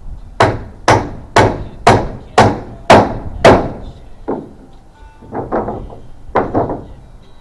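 Hammer driving a nail into wood: seven hard blows about two a second, then a few lighter, uneven taps near the end.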